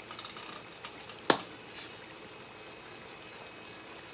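A single sharp clack about a second in, over a faint steady hiss, with a few lighter clicks before and after it.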